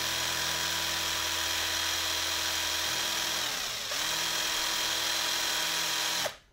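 Cordless drill with a 5 mm bit drilling through a carbon-fibre speargun barrel, its motor whining steadily. A little past halfway the motor slows, dropping in pitch, then speeds up again, and it stops abruptly just before the end.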